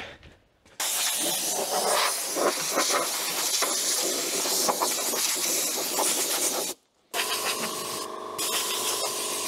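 Pressure washer jet spraying down the metal housing of a loader's sweeper-collector attachment: a steady, loud hiss. It starts just under a second in, breaks off briefly around seven seconds, then resumes with a steady hum under the spray.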